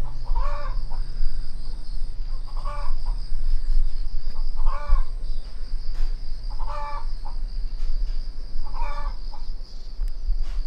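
Chicken calling repeatedly: five short clucking calls, about one every two seconds.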